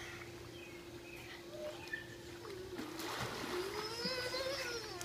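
A child jumping into a swimming pool: one splash about three seconds in, followed by a long child's cry that rises and then falls in pitch.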